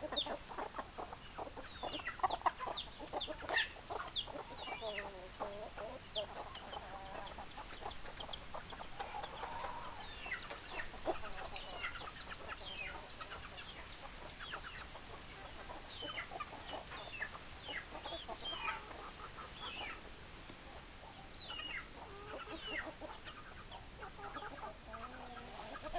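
A flock of chickens clucking, with many short, overlapping calls, busiest in the first few seconds.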